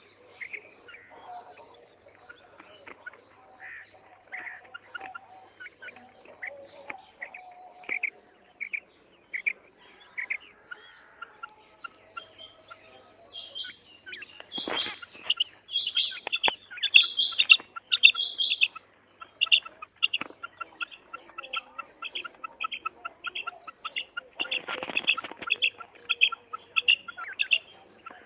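Caged female common quail calling: a long run of short, quick notes, loudest and highest in the middle, then an even string of about two to three calls a second.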